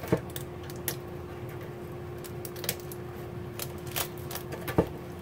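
Hands prying the top shell off a Dungeness crab: scattered sharp clicks and cracks of shell about once a second, with a faint steady hum behind.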